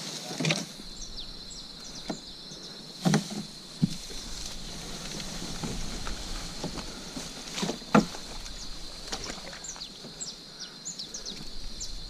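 Steady high insect drone with scattered short, high chirps. Over it, four or five sudden knocks and splashes from a kayak and its paddle, the loudest about 3 and 8 seconds in.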